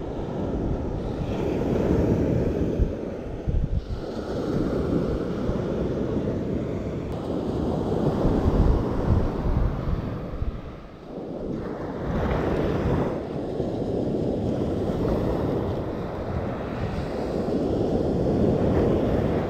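Surf washing onto the beach in swells that rise and fall every few seconds, with wind buffeting the microphone in low rumbles.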